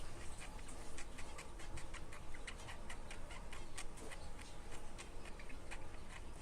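Caged birds making an irregular run of short, sharp clicks and chips, several a second.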